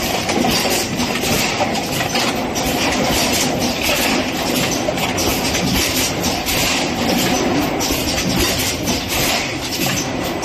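Fully automatic PET bottle blowing machine running: a steady, loud mechanical clatter and rattle with a hissing noise over it, with no pause.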